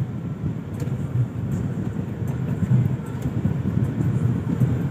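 Steady low rumble of a car's engine and tyres, heard from inside the cabin of the moving car.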